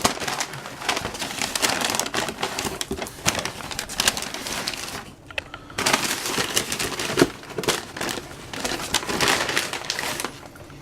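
Cardboard box and its packing being opened and rummaged through by hand: steady crinkling, rustling and crackling, with a short lull about five seconds in.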